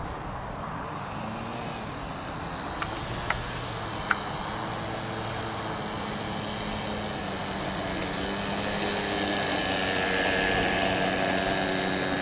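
Radio-controlled model airplane's engine running steadily as the plane flies low over the field, getting louder as it comes closer, over a hiss of wind on the microphone. Three short clicks sound about three to four seconds in.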